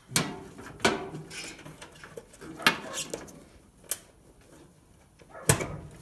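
A handful of sharp clicks and knocks from needle-nose pliers and wire connectors being handled at a dryer's sheet-metal top panel.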